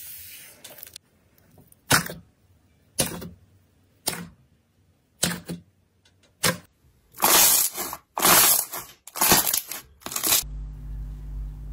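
Pink slime being poked, squeezed and pulled by hand: short sharp pops and crackles about once a second, then longer, louder crackling squishes in quick succession. Near the end a low steady hum takes over.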